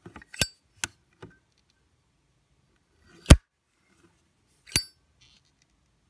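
Zippo windproof lighter's hinged metal lid and case clicking and clinking as it is handled and opened: a quick run of four metallic clicks in the first second and a half, then two sharper clinks, the loudest about three seconds in and another a second and a half later.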